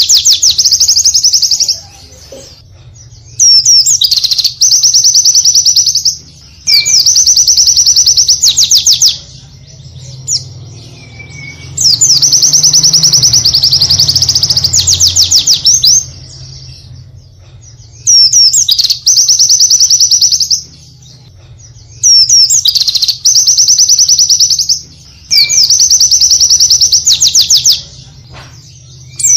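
White-eye (pleci) singing in loud bursts of rapid, high trilled notes, each burst a few seconds long, with short pauses between, one longer run near the middle.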